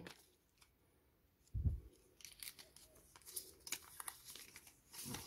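Small folded paper slip being unfolded by hand: faint crinkling and rustling of paper in quick little crackles. A soft low thump about one and a half seconds in comes before it.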